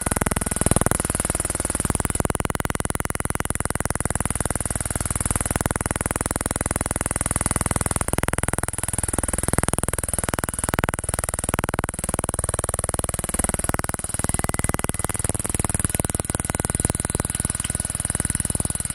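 Fast, steady electronic buzz with a high whine above it, picked up by the camera's audio from a powered-on DJI Mavic Pro drone held close to it. It is not heard by ear in the room, only in the recording, and the uploader puts it down to electromagnetic interference from the drone.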